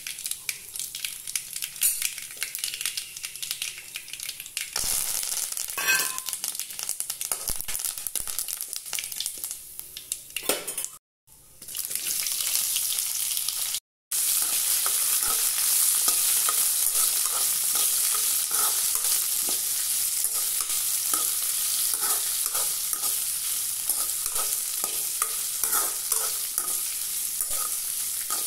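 Mustard seeds crackling and popping in hot oil in a metal kadai. After a cut, sliced ivy gourd sizzles in the oil while a metal spatula stirs it with repeated scraping strokes against the pan.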